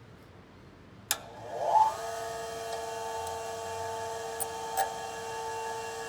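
Bench grinder switched on with a click, its motor and wheel spinning up in a rising whine over about a second, then running steadily at speed with a couple of light ticks.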